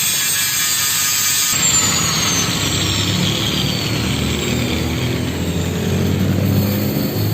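Angle grinder running against a steel seat-mounting bracket. About a second and a half in, the grinding gets heavier and the tool's high whine falls slowly in pitch under load.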